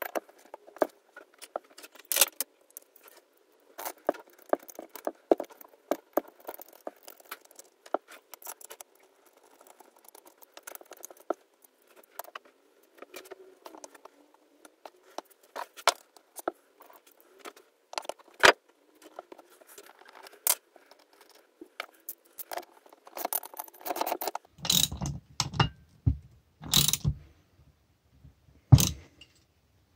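Small metal parts and tools clicking, rattling and scraping at irregular intervals, with a few heavier thumps in the last quarter.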